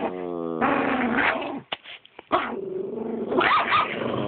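Dogs growling and whining at close range: a held whine-like tone at the start, then a run of growls and whines that rise and fall, with a couple of brief clicks about halfway.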